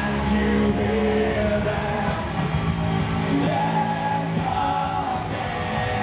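Live rock band playing: a male lead singer singing over electric guitar and bass guitar.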